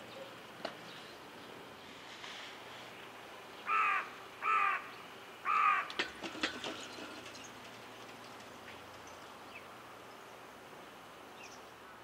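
A crow cawing three times, harsh calls of about half a second each, followed by a brief patter of sharp ticks.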